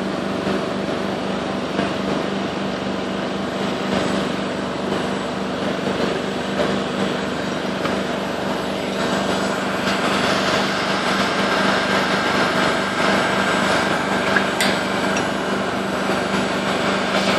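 Handheld hot-air heat gun running steadily while welding canvas: a constant hum and rush of blown air, with a higher steady whine joining about nine seconds in.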